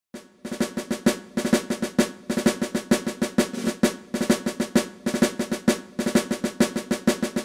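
Intro music of snare drum rolls and quick drum beats in repeated short phrases, stopping right at the end.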